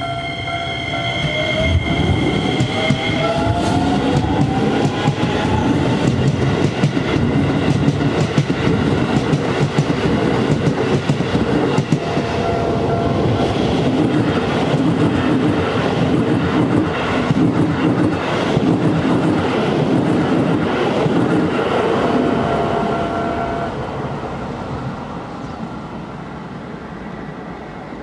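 Keisei electric commuter train passing over a level crossing. A rising motor whine in the first few seconds is followed by the wheels rumbling and clicking over the rail joints for about twenty seconds, fading near the end. The crossing's bell rings at the start and is heard again faintly under the train.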